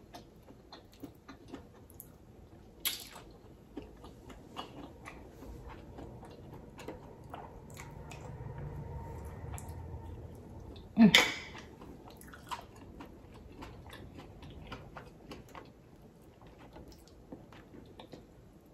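Close-miked chewing and wet mouth sounds of someone eating green-lipped mussels and rice, with many small smacks and clicks. One much louder, sharp mouth sound comes about eleven seconds in, as a mussel in its shell goes to the mouth.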